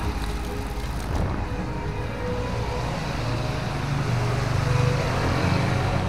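Road traffic on a wet street: a steady hiss of tyres on wet tarmac, with motorcycle engines growing louder as they come near in the second half.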